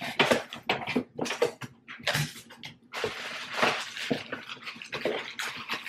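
Cardboard shipping box flaps being pulled open and bent back by hand: an irregular run of scraping, rustling and sharp crackles of cardboard.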